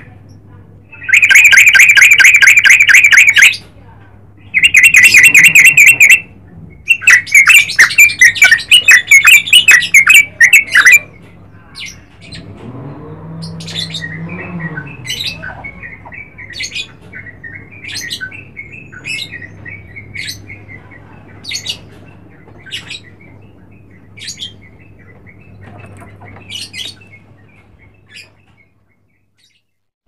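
Yellow-vented bulbul calling: three very loud bursts of fast chattering notes in the first eleven seconds, then softer short calls repeated about once a second. The calls stop shortly before the end.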